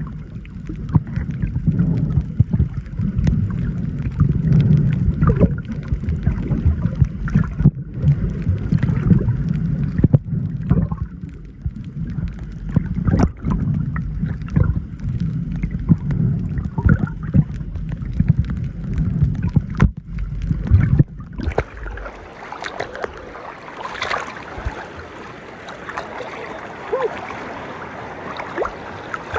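Muffled underwater sound from a snorkeler's camera: a low water rumble with scattered clicks. About twenty seconds in the camera breaks the surface, and the rumble gives way to small waves lapping and splashing around it.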